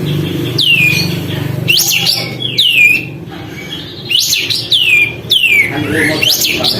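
Sooty-headed bulbul singing: a string of loud, sharp notes, each dropping steeply in pitch, some coming in quick pairs, with a brief lull about three seconds in. A low steady hum underlies the first half.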